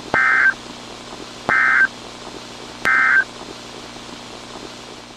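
Three short bursts of EAS SAME digital data tones, evenly spaced a little over a second apart. This is the end-of-message code that closes an emergency alert, heard over a steady hiss with a faint low hum.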